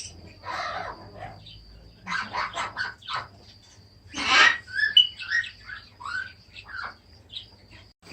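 Pet birds chirping and squawking in a stream of short calls and quick whistled glides, with a loud harsh squawk about four seconds in.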